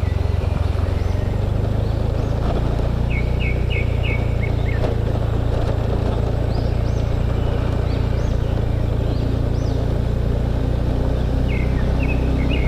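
Motorbike engine running at a steady speed, heard from the rider's seat with road and wind noise. Birds chirp over it: a quick run of four short chirps about three seconds in, scattered higher calls in the middle, and more chirps near the end.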